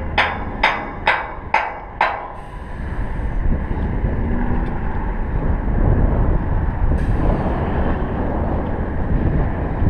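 Sharp metal-on-metal strikes on the galvanized steel tower, five of them at about two a second with a brief ring after each, stopping about two seconds in. Wind then rumbles on the microphone for the rest.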